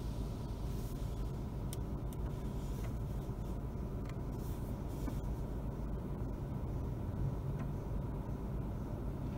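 Automatic car wash machinery heard from inside the closed car cabin during the foam stage: a steady, muffled low rumble with a few faint ticks.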